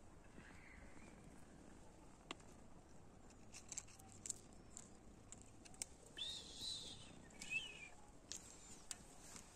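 Quiet outdoor ambience with faint scattered clicks and rustles of dry leaves and thuja twigs as a kitten moves through them, and a few faint high chirps about six to seven and a half seconds in.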